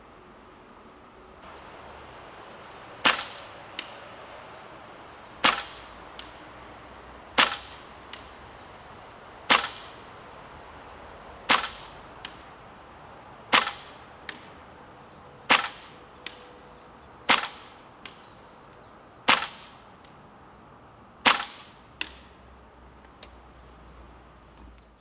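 Tokyo Marui USP gas blowback airsoft pistol fired in slow single shots, about ten sharp cracks roughly two seconds apart. A fainter click follows most of the shots.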